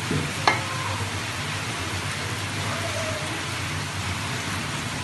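Meat-boiling water being poured from a pot into a hot aluminium karahi of frying mutton and tomatoes: a steady splashing hiss over the sizzle, with one short knock about half a second in.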